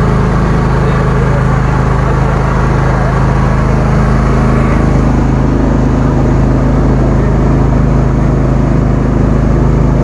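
Motorboat engine running steadily under way, a loud even drone, with water rushing and splashing along the hull.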